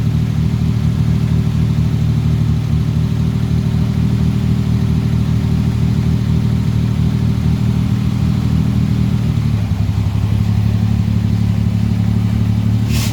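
1938 SS Jaguar 3½ Litre's straight-six engine running steadily, its note shifting slightly about two-thirds of the way through. A sharp click near the end.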